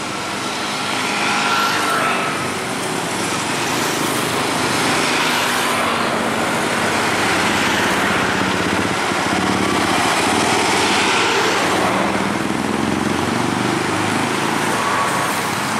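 Busy road traffic passing close by: cars, motorcycles and a Mitsubishi Canter light truck, a steady mix of engine and tyre noise that swells and eases as vehicles go past.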